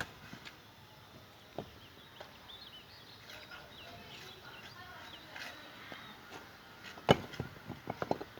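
Scattered sharp knocks of construction work: one about a second and a half in, and a louder quick run of knocks near the end. Faint birds chirp in between.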